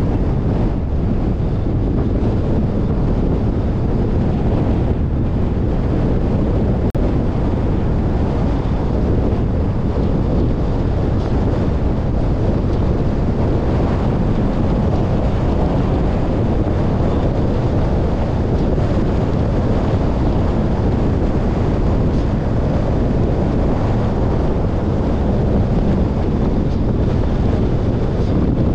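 Loud, steady rumble of wind buffeting the microphone.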